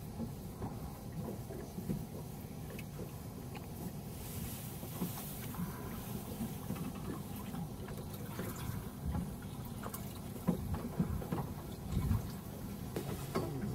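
Water lapping and splashing against the hull of a small fishing boat, over an uneven low rumble.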